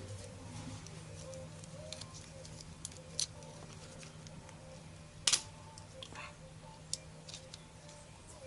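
Scattered small clicks and taps of hands working a car door lock cylinder, prying the plastic sensor off its back; the sharpest click comes about five seconds in.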